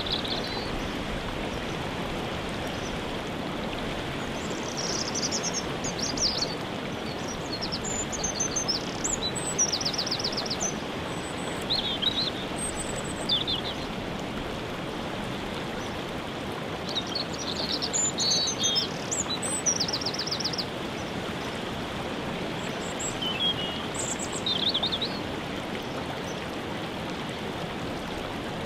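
Steady rush of a waterfall, with birds chirping and singing short trills over it every few seconds.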